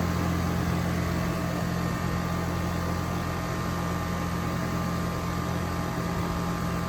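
A new Goodman central air conditioner's outdoor condensing unit running in cool mode. Its Copeland scroll compressor hums steadily, with a few fixed hum tones, under the even air noise of the condenser fan.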